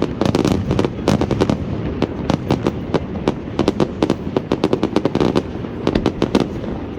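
Aerial fireworks going off in a rapid, continuous string of sharp bangs and crackles, several a second, over a constant low rumble of booms.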